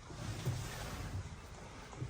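Bass boat under way, water rushing past the hull with a steady hiss and a low rumble underneath.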